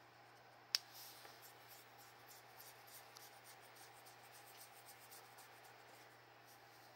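Fingers rubbing and scratching an alligator's scaly jaw and head: faint dry scratching with many small ticks, and one sharp click a little under a second in.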